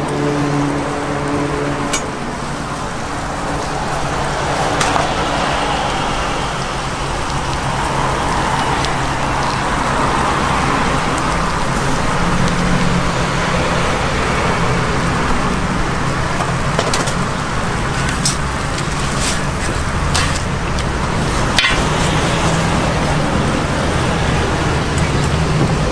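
Pork chop steaks sizzling on a hot flat-top griddle, with a few sharp metal clicks and scrapes as a spatula and cleaver strike the griddle. A steady low hum runs underneath.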